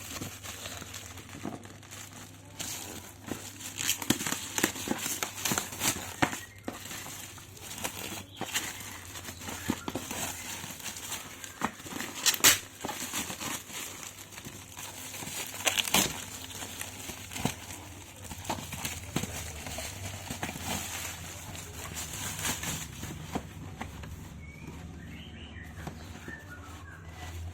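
Cardboard shoebox and its wrapping being handled and unpacked: continuous rustling and crinkling with frequent taps and clicks, and a few louder snaps, the loudest about halfway through.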